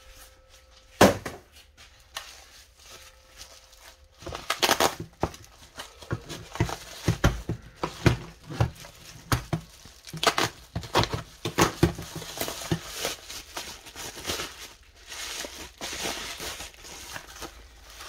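Bubble wrap being handled and pulled off a wrapped tool, with irregular crinkling and rustling from about four seconds in; a single sharp knock about a second in.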